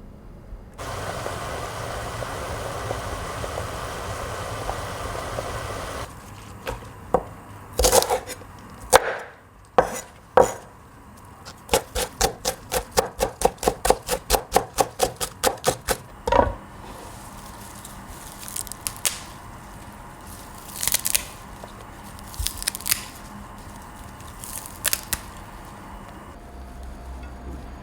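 Kitchen knife chopping on a cutting board: a few separate knocks, then a quick even run of strokes at about four a second, then a few lighter taps. Before the chopping there are several seconds of steady hissing noise.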